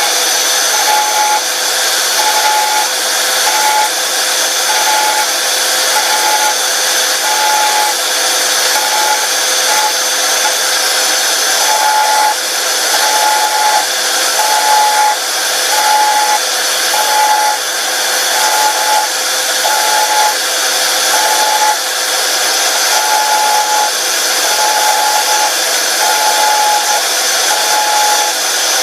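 Electric power sander running steadily while its tip is worked lightly back and forth over the plastic teeth of a stormtrooper helmet, thinning them. A steady whine runs throughout, with one tone cutting in and out about once a second.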